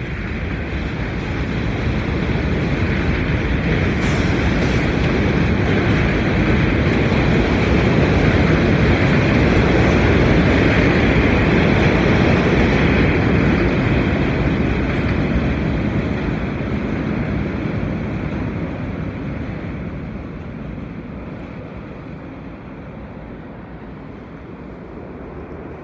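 New York City subway train rumbling along the steel elevated track as it pulls through and away from the station, with a steady high whine over the rumble. The sound builds to its loudest about ten seconds in, then fades away.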